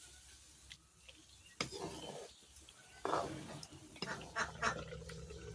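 A few short animal calls over a low steady background, most of them in the second half.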